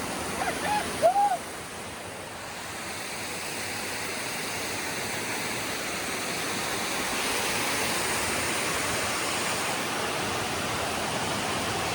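Waterfall rushing steadily, a little louder from a few seconds in.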